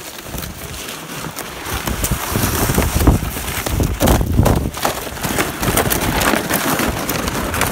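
Crunching footsteps in snow and a plastic sled scraping over it as a husky pulls it, louder from about two seconds in, with some wind noise on the microphone.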